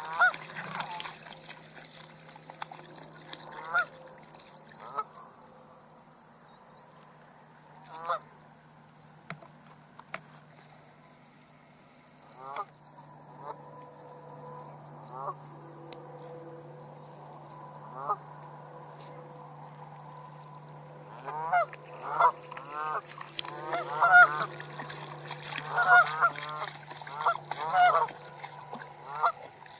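Flock of Canada geese honking: single honks here and there at first, then a rapid run of overlapping honks through the last third.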